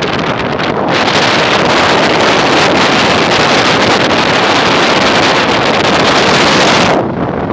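Wind buffeting the microphone of a camera riding on a moving vehicle, over the vehicle's engine and road noise. The rushing grows much louder about a second in and drops off sharply near the end.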